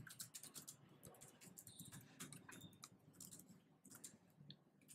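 Faint computer keyboard typing: scattered soft key clicks, sparser near the end.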